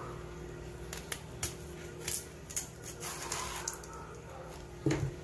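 Ridged loofah (angled luffa) being peeled with a blade: a series of short, irregular scraping strokes as the green skin comes off the gourd, with a dull knock near the end.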